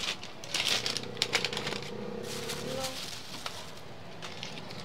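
Metal tongs clicking and a plastic bag rustling as fried snacks are picked up and bagged. A steady hum runs underneath for about two seconds.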